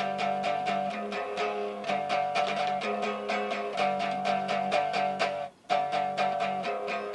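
Guitar music with fast, even strumming over steady chords; it cuts out for a moment about five and a half seconds in, then carries on.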